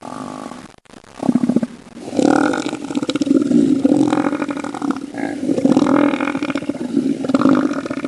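Elephant seal bellowing: low, pulsing, throaty calls, a short one about a second in, then a longer string of bellows from about two seconds on.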